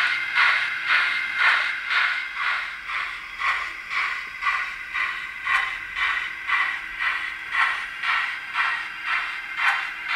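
Sound decoder in a Hornby OO model of 'Lord Nelson' No. 30850 playing the recorded exhaust of the preserved Lord Nelson through the model's small 28 mm speaker. The locomotive is working slowly, giving even steam chuffs about two a second. The recording has the class's correct eight beats per wheel revolution, from its four-cylinder layout.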